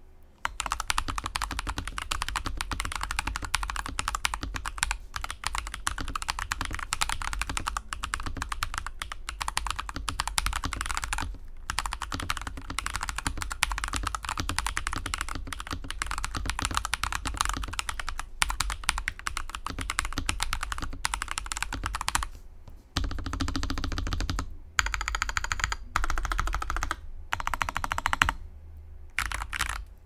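Continuous fast typing on a stock, pre-built full-size mechanical keyboard with factory tactile switches: a dense clatter of keystrokes, with a short pause about 11 seconds in. About 23 seconds in the clacks turn deeper and fuller for a few seconds, and the typing thins out near the end.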